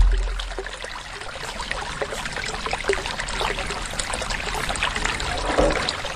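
Running, trickling stream water, a steady babbling sound effect laid over the pond illusion, with many small clicks in it.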